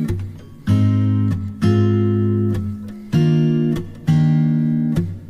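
Background music: the instrumental intro of a song, with guitar chords struck about once a second, each ringing on until the next.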